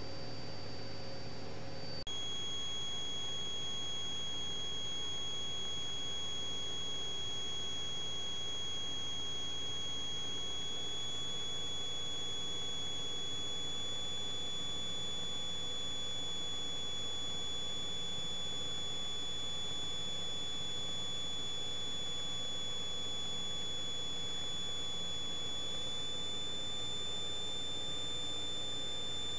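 Steady high-pitched electronic whine with overtones, dropping in pitch about two seconds in and then holding, with two slight upward steps, over a faint low hum in the cockpit audio line.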